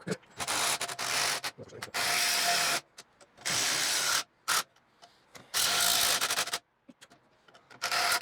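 Hand-tool work on the motorcycle's rear shock spring: five long rasping, ratchet-like metal strokes, each about a second long, with sharp clicks between them.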